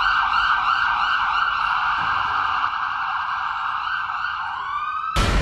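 Emergency-vehicle siren wailing in a fast warble, about four wobbles a second, that eases into a rising sweep and is cut off near the end by a sudden loud rush of noise.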